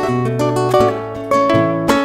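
Acoustic guitar playing a picked melody over held bass notes, the instrumental introduction of a folk song before the singing comes in.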